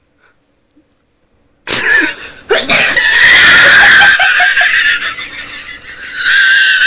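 A girl's loud sneeze breaks out suddenly about two seconds in, triggered by tissue pushed up her nose, and runs straight into long, high-pitched laughter.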